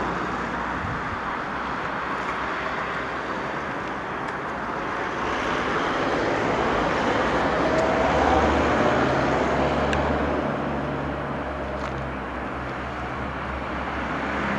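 Steady outdoor traffic noise, with a motor vehicle's low engine hum coming in about halfway through.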